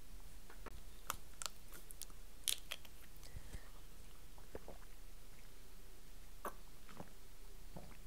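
A person chugging water from a plastic bottle: soft swallowing gulps and scattered sharp clicks and crinkles of the plastic bottle, the louder ones in the first three seconds.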